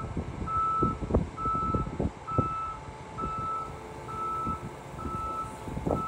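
A vehicle's backup alarm beeping at an even pace, a little under one beep a second, with wind buffeting the microphone.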